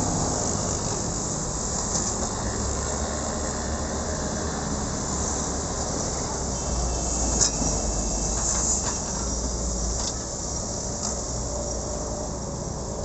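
Doosan 160 wheeled excavator's diesel engine running steadily with a low rumble, with a few short knocks as the machine works.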